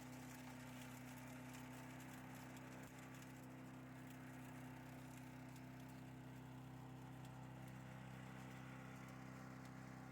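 Faint, steady hum of a small petrol engine running at an even speed.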